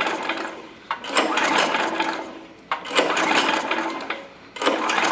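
Predator small engine being cranked by its recoil pull-starter with the spark plug removed: three quick pulls, each a whirr that fades out, starting about a second in, near the middle and near the end. The engine spins freely with no compression, and the cranking checks whether fuel is still being blown out of the plug hole of a flooded cylinder.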